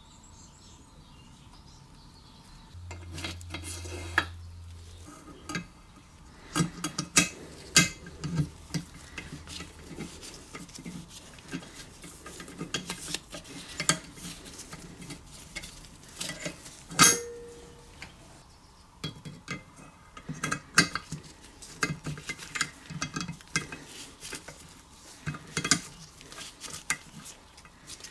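Irregular light metallic clicks and clinks of a valve spring compressor and valve parts against the aluminium block of a Briggs & Stratton small engine while the valve springs are fitted, one sharp click louder than the rest about halfway through.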